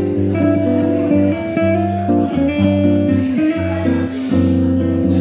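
Epiphone Broadway Elite hollow-body archtop electric guitar playing amplified single-note lines and chords over sustained low bass notes, with some notes sliding in pitch.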